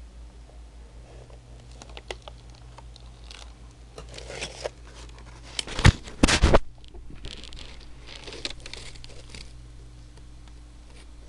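Handling noise of a handheld camera: rustling, scratching and scattered clicks over a steady low hum, with a cluster of loud knocks about six seconds in.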